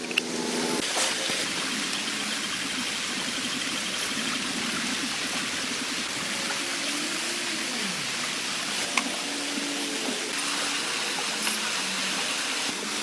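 Steady rain falling, a continuous even hiss, with a single sharp tap about nine seconds in.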